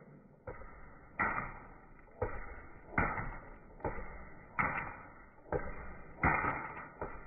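Paintball gun firing about nine shots in steady succession, a little under a second apart, each a sharp pop that dies away quickly, with the paintballs splattering against a running box fan.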